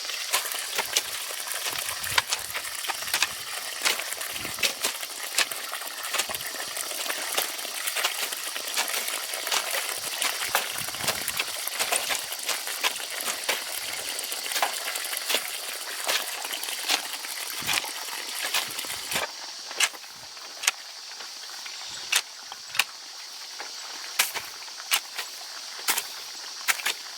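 Hand tools striking and scraping soil in irregular knocks, about one or two a second, over a steady high hiss that thins about two-thirds of the way through.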